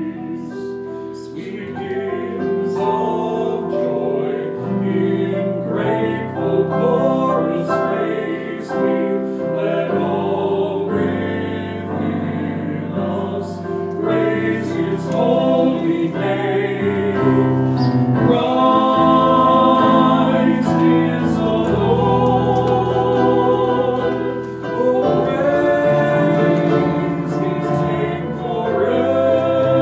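A small church choir singing in parts, with held notes from an accompanying instrument underneath.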